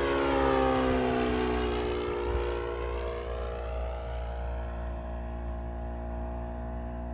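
Large-scale RC F8F Bearcat model's O.S. GF40 four-stroke gasoline engine flying past. The engine note is loudest about half a second in and drops in pitch as the plane goes by, then runs on at a steady lower pitch as it flies away.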